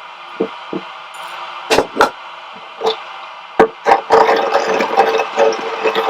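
Sharp wooden-sounding knocks and clatter, as of objects being handled. About four seconds in, a steady hum with continuous rattling sets in.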